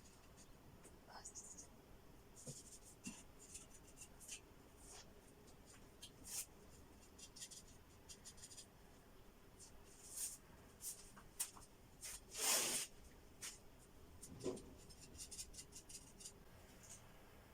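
Double-layer wallpaper being scraped and torn off a wall by hand: scattered short scratching and ripping sounds, with one longer, louder tear about twelve seconds in. The paper is coming away with difficulty.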